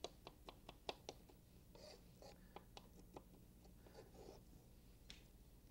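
Faint quick taps of a kitchen knife on a wooden cutting board mincing shallot, about six chops a second for the first second. The taps then turn sparser, with a few soft brushing scrapes as the chopped shallot is gathered on the board.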